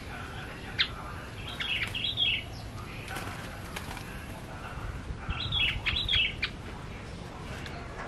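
Male yellow-vented bulbul fluttering its wings as it flies between hand and perch, with two short phrases of chirping song, one about two seconds in and another near six seconds.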